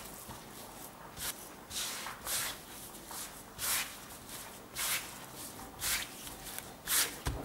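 Hands kneading soft curd shortcrust dough on a floured silicone mat: short, soft rubbing and pressing swishes, roughly one a second.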